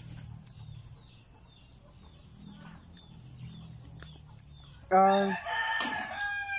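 Gamecocks crowing and clucking. It is faint at first, with a loud, drawn-out call starting about five seconds in.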